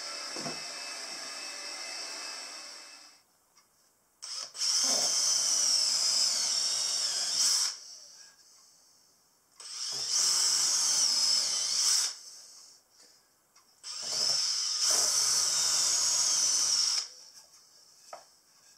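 Makita 18V cordless drill boring pilot holes in pine, in three runs of about three seconds each with short pauses between them. Its high motor whine wavers in pitch as the bit cuts. Before that, a Makita cordless stick vacuum runs steadily and switches off about three seconds in.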